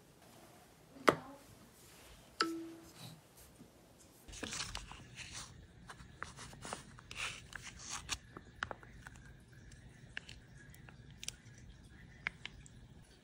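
Plastic retort pouch of curry crinkling and crackling as it is handled, torn open and squeezed out, a dense run that thins out toward the end. Before it come two sharp knocks, the second with a short ringing tone.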